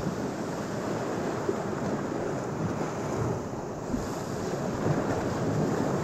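Small Lake Michigan waves washing onto a sand beach and splashing against rusted steel pilings, a steady surf that swells a little about five seconds in, with wind buffeting the microphone.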